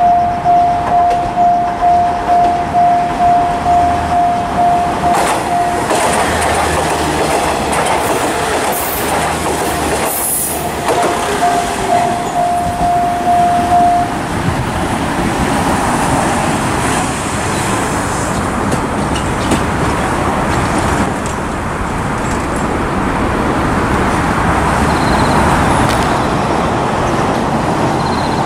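Level-crossing warning bell ringing about twice a second, then stopping about 14 seconds in. Over it, a train runs past the crossing with a steady rumble and the clatter of wheels on rail.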